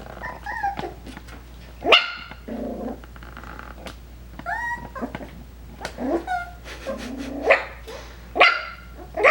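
Five-week-old Coton de Tulear puppies yipping and barking in a string of short, high calls, with a few lower growls between; the loudest yips come about two seconds in and again near the end.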